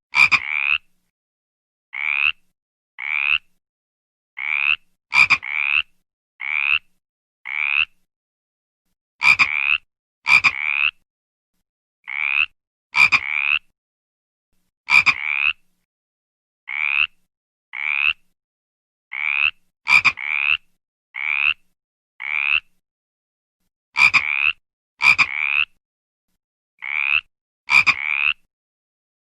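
A frog calling: a long series of short croaks, each about half a second, coming singly or in quick pairs and threes with brief silences between, about one a second overall.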